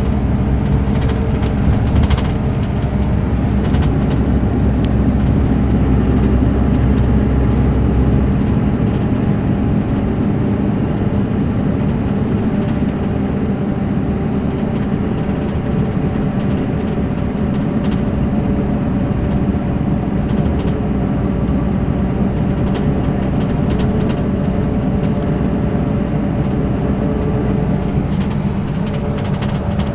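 Mercedes-Benz O500 RSD coach's BlueTec5 diesel engine running steadily with a constant hum. A deep rumble underneath eases about nine seconds in.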